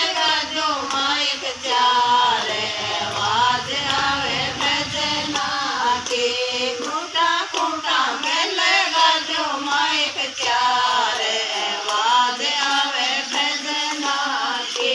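Women's voices singing a Hindi bhajan (devotional song) together, in a continuous melodic line with short breaks between phrases.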